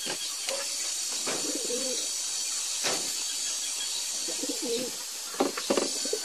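A dove cooing over and over, with sharp clicks and taps of a knife on a wooden chopping board as a pineapple is cut, several quick ones close together near the end.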